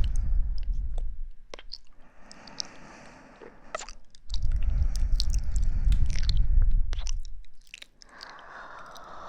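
Close-up ASMR trigger sounds on a microphone: two stretches of loud, low rumbling, each a few seconds long, with scattered crackly clicks between them and a soft hiss near the end.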